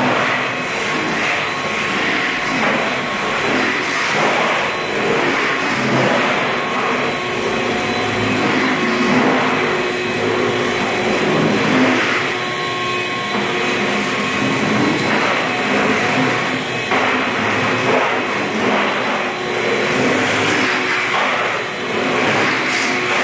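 A motor-driven machine running steadily: a continuous rushing noise with a constant thin whine over it.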